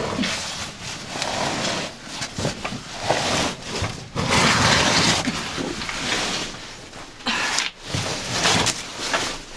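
A caver crawling through a tight, low rock squeeze: oversuit and tackle bag scraping and dragging over rock and dirt, with heavy, grunting breaths. It comes in uneven surges a second or two long.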